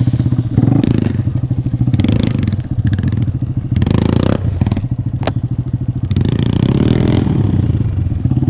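A small 125cc single-cylinder motorcycle engine running at low speed, with the throttle blipped up and down over and over as the bike picks its way over rough ground. There is a sharp click about five seconds in.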